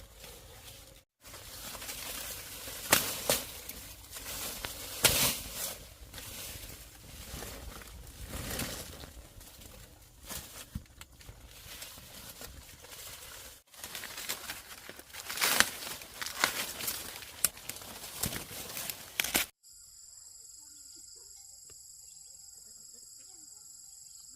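Rustling and crackling with several sharp, loud snaps. In the last few seconds this gives way to a steady, high-pitched buzzing drone.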